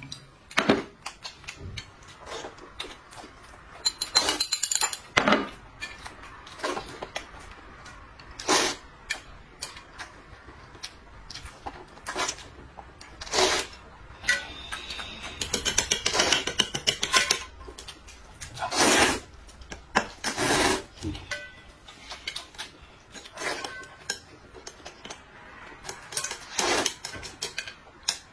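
People eating noodle soup and rice: irregular slurps and short clicks of chopsticks against bowls, coming in scattered bursts with lulls between.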